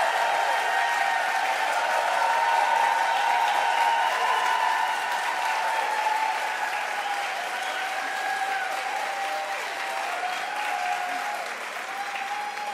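Large audience applauding, with cheering voices held over the clapping; the applause slowly dies down near the end.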